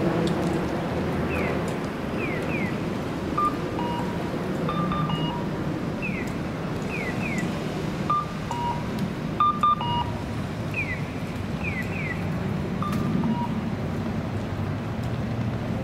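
Steady street traffic noise with repeating electronic signal tones: a short falling chirp answered by two more, every four to five seconds, plus scattered short two-note beeps.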